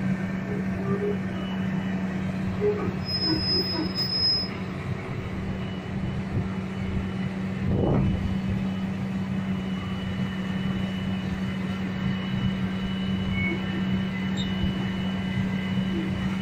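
Lonking crawler excavator's diesel engine running steadily while the machine tracks and works its boom, the hydraulics and tracks adding a faint high squeal. A short louder rumbling surge comes about eight seconds in. The machine is running again after many years standing idle.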